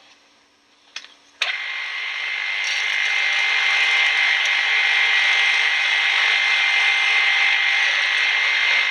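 Pillar drill starting up about a second and a half in and running steadily as its 1/8-inch bit drills a rivet hole through mild steel sheet, a loud steady whir with a high whine through it.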